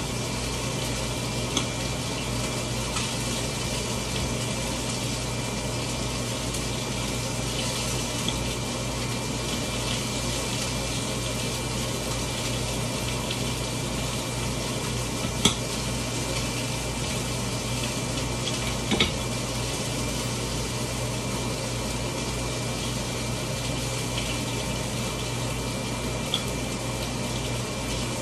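Steady rushing noise with a constant low hum, and a few light clicks and knocks from food preparation on the counter, the sharpest about halfway through.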